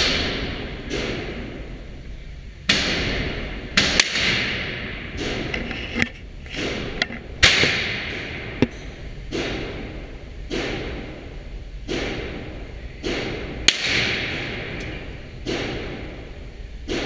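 Glock pistol fired shot after shot, about twenty sharp reports at irregular spacing, some in quick pairs. Each shot rings on in the echo of a concrete-walled indoor range.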